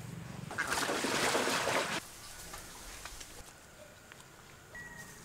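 Dry unhusked rice grain in a wicker basket rustling as duck eggs are pressed into it, for about a second and a half, cutting off abruptly. Quieter outdoor background follows, with a few faint ticks and a brief high tone near the end.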